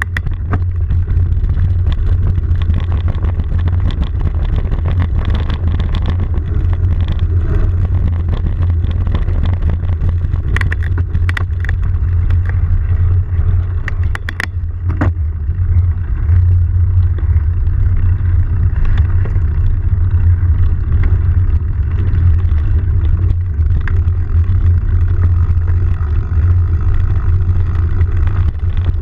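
Steady low wind rumble on a moving camera, with scattered knocks and rattles from bumps on the dirt trail.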